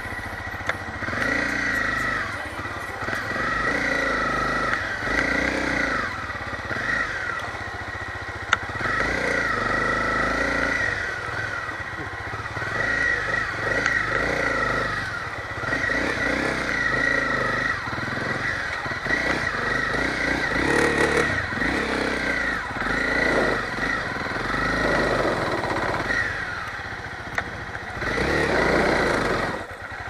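Motorcycle engine running while riding, its pitch rising and falling with the throttle.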